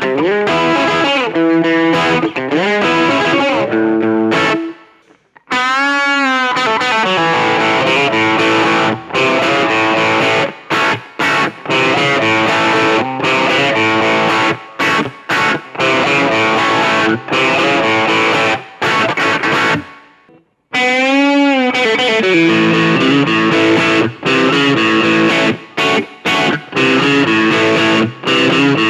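Electric guitar, a Stratocaster with Seymour Duncan P-Rail pickups, played with distortion through a small NUX Mighty Lite BT amp. Chords and riffs that break off briefly twice, each time resuming with a wavering swoop in pitch.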